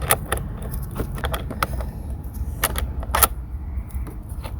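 Scattered metallic clicks and knocks of hand tools and battery hardware being handled in a truck's engine bay, over a steady low rumble.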